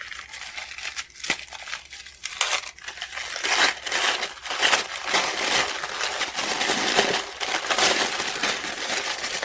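Green tissue paper crinkling and rustling as it is unrolled and pulled open by hand, fuller and louder after the first few seconds.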